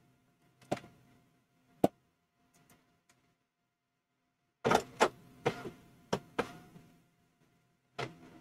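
A few sharp mechanical clicks, then a quick cluster of clacks about halfway through and one more near the end.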